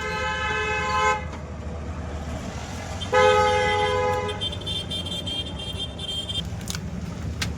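Vehicle horn honking twice, each blast about a second long, over a steady low traffic rumble. A thin high tone follows the second honk for a couple of seconds.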